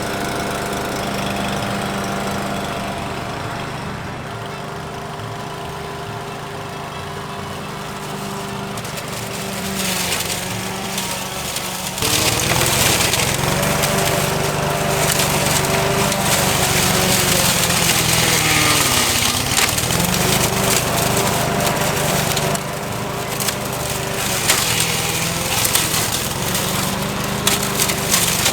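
Petrol lawn mower engine running steadily, getting louder about halfway through, with a brief dip in pitch a few seconds later.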